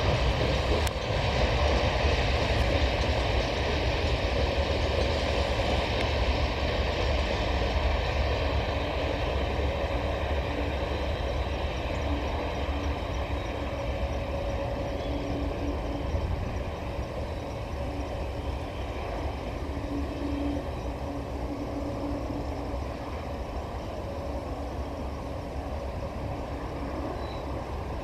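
Freight train of cement hopper wagons rolling away over the rails: a steady low rolling noise of wheels on track that slowly fades as the tail of the train recedes.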